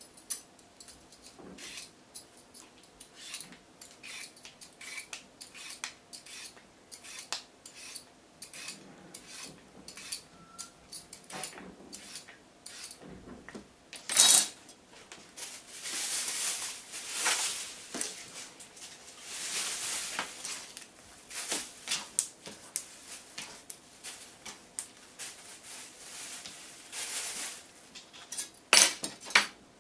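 Metal vegetable peeler scraping down a carrot in repeated strokes, with small clicks and taps on a plastic cutting board. A sharp knock comes about halfway through and another near the end.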